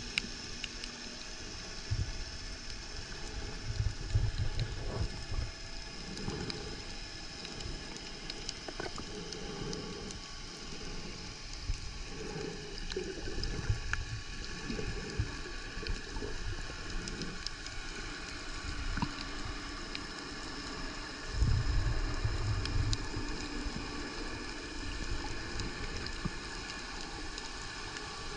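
Underwater ambience picked up by a submerged camera: a steady muffled hiss of water with faint scattered clicks, and low rumbling swooshes of water moving past the camera twice, about four seconds in and again past the twenty-second mark.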